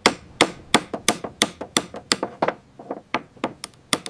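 Repeated sharp hammer taps, about a dozen at an uneven pace of roughly three a second, during bridge repair work.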